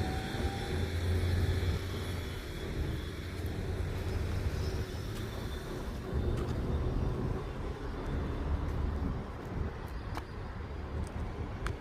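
Road traffic at a roadside: a steady low engine rumble from passing vehicles, with a few faint ticks in the second half.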